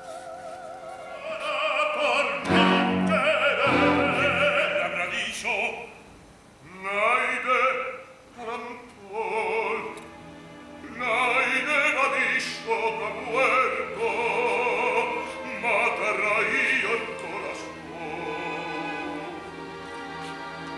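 Operatic singing with wide vibrato over an orchestra. A woman's voice holds a note at the start; later a man's voice sings in separate phrases, softer near the end.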